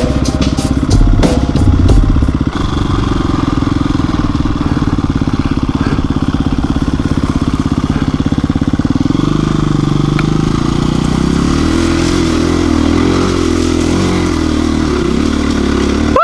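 KTM 350 EXC-F single-cylinder four-stroke dirt bike engine running while the bike rides over loose gravel. A few sharp clicks and knocks come in the first two seconds. The revs rise about nine seconds in and then waver up and down.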